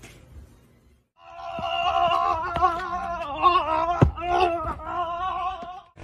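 An added comedic sound effect: a held, wavering pitched tone that starts about a second in, with several sharp clicks through it, and stops just before the end.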